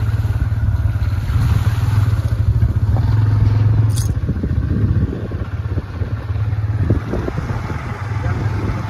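Motorcycle engine running at a steady cruise with wind and road rumble, heard from the rider's seat. It eases off a little about halfway through, with scattered rattles and knocks from the rough track.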